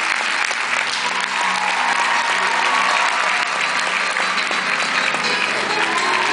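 Audience applauding steadily, with music playing underneath that comes in from about a second in.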